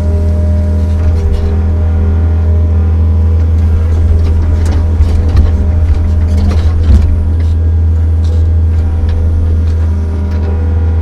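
Kobelco SK55 mini excavator's diesel engine running steadily while digging, with scattered clicks and a couple of sharper knocks from the bucket and machine around the middle.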